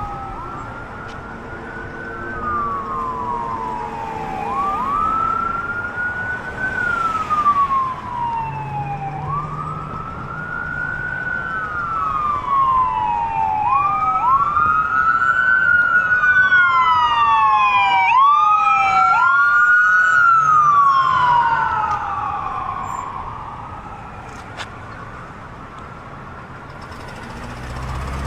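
Emergency vehicle siren on a wail, a tone climbing quickly and sliding slowly down about every four to five seconds; from about the middle a second overlapping wail joins it. It grows louder as it passes, then fades away near the end over steady traffic noise.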